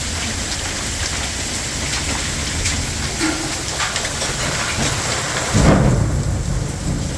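Heavy hail and rain hammering down in a dense, steady roar, with many sharp hits of hailstones on surfaces. About five and a half seconds in, a loud low rumble of thunder rises over it.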